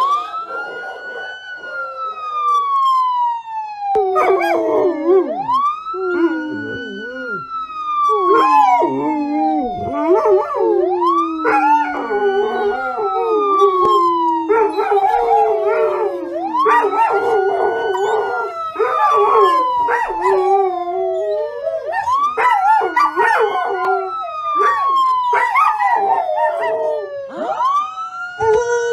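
An emergency siren on a slow wail, rising quickly and falling slowly about every five to six seconds. About four seconds in, a group of canines starts howling along with it.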